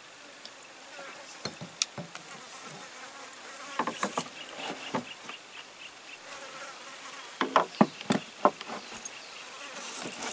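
Insects chirping in a fast, steady pulsing rhythm. Scattered sharp clicks and knocks are louder than the insects and come in clusters: about two seconds in, around four seconds, and around eight seconds.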